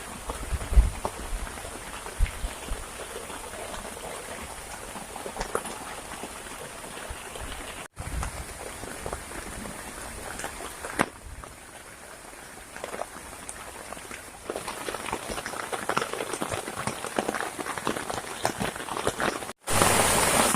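Heavy rain falling steadily, with individual drops ticking sharply close by. The sound drops out briefly twice, and in the last second there is a much louder rush of noise.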